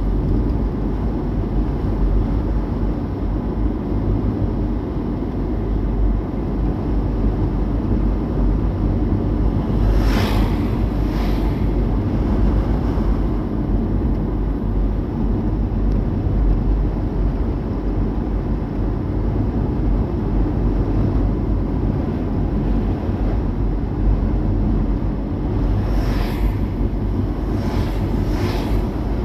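Steady low road and engine rumble of a car being driven. Short whooshes come about ten seconds in and again near the end, like other vehicles passing.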